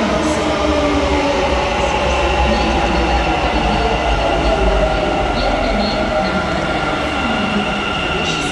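Bangalore Metro electric train running: a steady low rumble with a high electric motor whine made of several tones that shift slightly in pitch.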